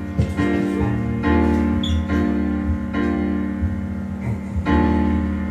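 Karaoke backing track playing the piano intro of a ballad, with a new chord about once a second.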